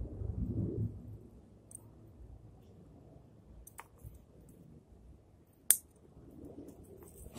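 Low rustling of hands handling a small bonsai, then one sharp, short click about two-thirds of the way through, with a few fainter ticks around it.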